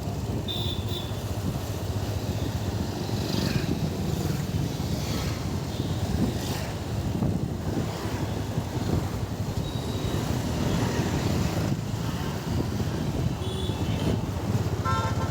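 Steady low rumble of a motor vehicle on the move, with a fluttering, buffeting quality.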